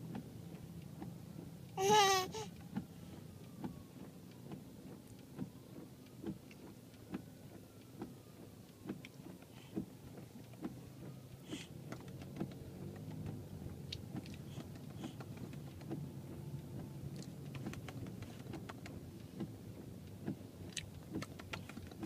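Low steady road rumble inside a moving car's cabin, with scattered small clicks. A baby makes one short babbling sound about two seconds in.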